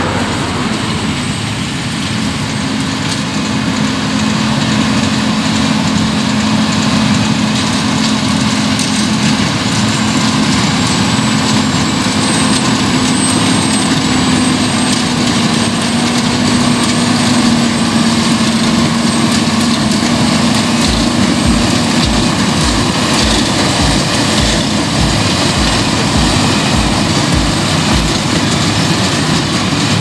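Massey Ferguson 8740S tractor, a six-cylinder diesel, running steadily under load while pulling a Massey Ferguson 2270XD large square baler that is baling straw. Over the engine runs a dense mechanical clatter, and in the second half a series of regular low thuds comes about twice a second.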